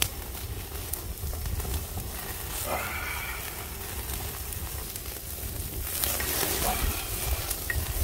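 Straw fire burning under a wire grill of pork belly: crackling flames and sizzling fat over a low rumble. A louder hissing rush of flame comes about six seconds in, and a short pitched sound about three seconds in.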